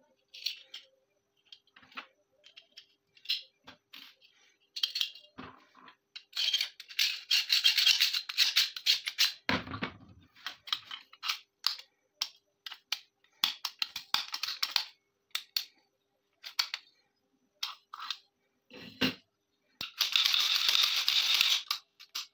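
Metal parts of a 30 bore Tokarev-pattern pistol and its magazine being handled and reassembled: scattered small clicks and scraping rattles, in three denser scratchy stretches, with two dull knocks, a little before halfway and later on.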